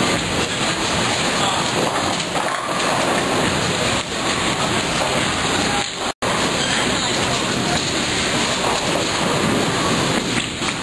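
Dense, steady din of a busy bowling center: the rumble of balls rolling down many lanes and the clatter of pins, with crowd voices mixed in. The sound cuts out for a split second about six seconds in.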